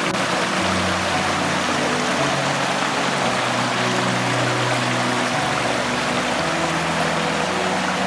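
A small mountain stream rushing and splashing over boulders in a steady rush of water. Soft music with long, held low notes that change every second or two plays underneath.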